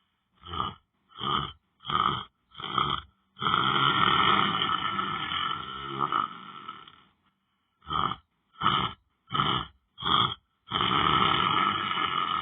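A person snoring in a rough, rasping way: four short snores in quick succession, then one long drawn-out snore. The pattern repeats once.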